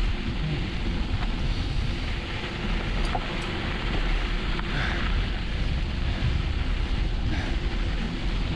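Wind buffeting the microphone of a camera on a mountain bike descending at speed, a steady loud rush with heavy low rumble.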